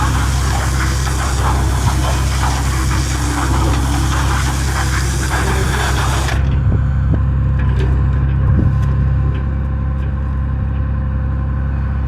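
An engine running steadily with a deep hum, under a broad hiss that cuts off suddenly about six seconds in.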